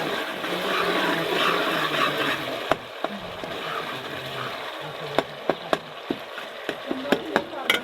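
Irregular sharp knocks of kitchen utensils, about six or seven in the last three seconds. Voices talk faintly in the background in the first few seconds.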